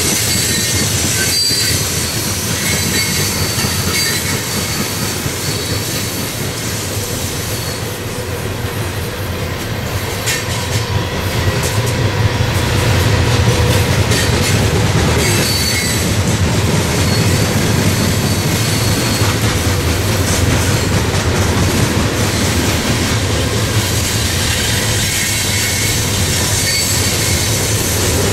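Freight train of hopper cars rolling past: a steady rumble of steel wheels on rail, with high-pitched wheel squeals coming and going and a few clacks over rail joints. It grows a little louder about halfway through.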